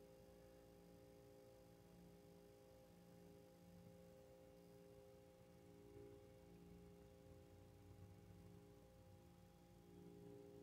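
Near silence: room tone with a faint, steady hum of several low tones.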